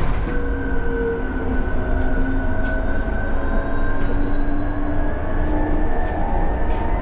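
Electric city bus driving, heard from inside the cabin: a steady low road rumble, with the electric drive's whine in several tones that drift slowly in pitch, and a few light rattles.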